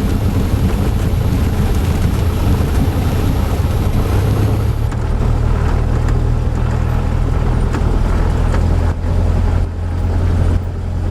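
Cessna 172 Skyhawk's four-cylinder piston engine running steadily at low power, rolling out and taxiing after landing. The level dips briefly a couple of times near the end.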